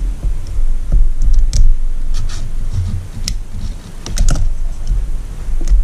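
Piston ring pliers and a piston ring on a Mercury outboard piston, working the ring in its groove: a scattered series of sharp metallic clicks over low handling knocks. The ring is still sticking in its groove even after the carbon was cleaned out, so it needs replacing.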